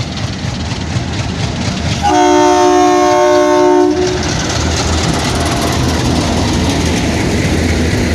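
Locomotive horn sounding one steady blast of about two seconds, about two seconds in, over the continuous rumble and clatter of a passenger train rolling into the station.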